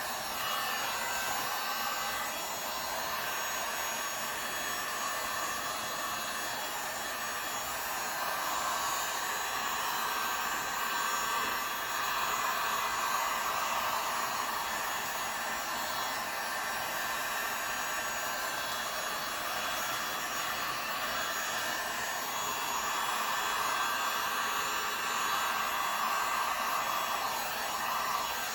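Heat gun running on its low setting over wet epoxy resin, a steady blowing whoosh that swells and fades every few seconds.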